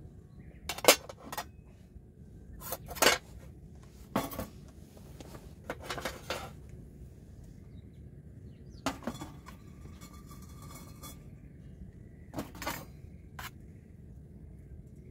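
Stainless steel tableware clinking and knocking as a bowl is set out and rice is served: about ten separate sharp clinks with pauses between them.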